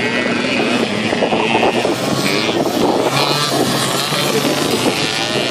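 Engines of several racing mopeds running and revving as they ride around a dirt track, one passing close by.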